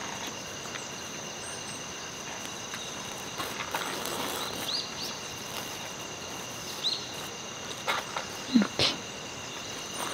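Insects trilling steadily in a high, even tone, with a few short bird chirps. Near the end come several sharp knocks and rustles from something being handled close by.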